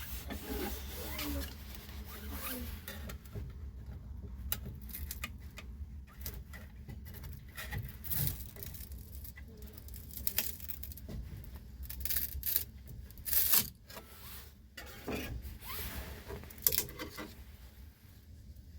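Irregular scraping and rustling handling sounds with scattered sharp clicks, over a faint steady low hum.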